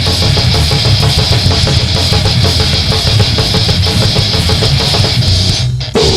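Heavy metal band playing fast, with distorted electric guitars and a drum kit. The sound breaks off for a moment near the end, then the band comes straight back in.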